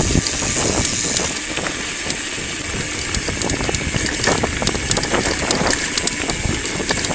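Mountain bike rolling over a gravel road: tyres crunching on loose stones, with scattered rattling clicks from the bike, picked up by a handlebar-mounted camera.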